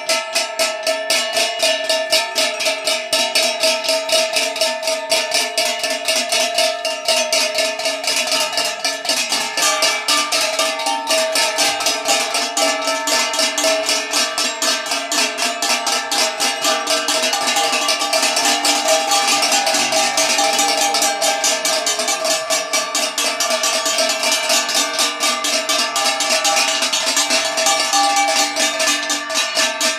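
Several hand-held metal plates beaten with sticks in a fast, steady rhythm, their ringing tones overlapping into a continuous metallic clangour.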